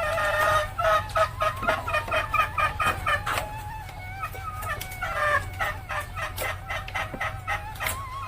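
Junglefowl hen cackling (ngekek): fast runs of short repeated pitched clucks, several a second, with a lull about halfway through, over a steady low hum.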